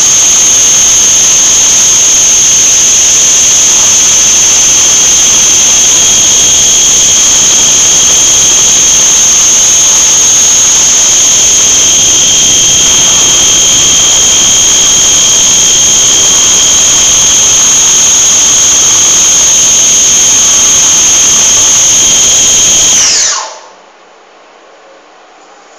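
Krisbow CNC milling machine's spindle running with a loud, steady high-pitched whine while it mills. Near the end the whine falls quickly in pitch as the spindle spins down and stops.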